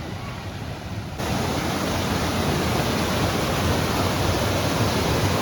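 Steady rushing of a waterfall, which jumps louder about a second in.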